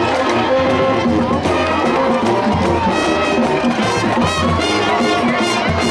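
High school marching band brass section playing a stand tune with a steady drum beat, over the noise of a crowd in the stands.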